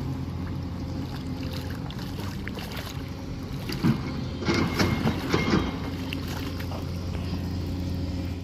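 A steady low motor hum, with a cluster of louder irregular knocks and rustles about four to six seconds in.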